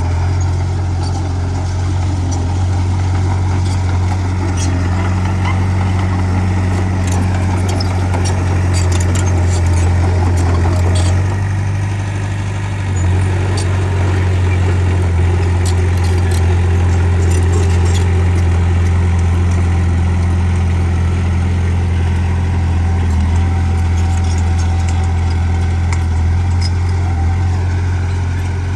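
Bulldozer's diesel engine running steadily with a deep hum, easing off briefly about twelve seconds in and then picking up again. Scattered sharp clicks and clanks sound over it.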